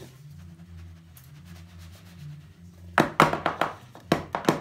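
Metal springform cake pan full of batter knocked down repeatedly on the kitchen counter: a quick run of sharp knocks starting about three seconds in, several a second.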